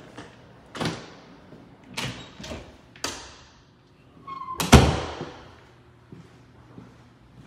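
Interior doors being opened and shut: a series of knocks and latch clicks, then a short squeak and the loudest thud about halfway through.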